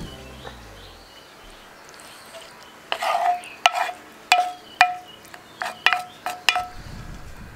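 Wooden spoon scraping and knocking tomato sauce out of a pan into a ceramic bowl: a string of about eight sharp knocks, each ringing briefly, starting about three seconds in.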